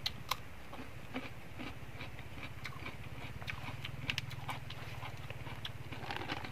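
A crisp bite into a fresh cucumber slice, then close-up chewing with scattered crunches and mouth clicks, over a steady low hum.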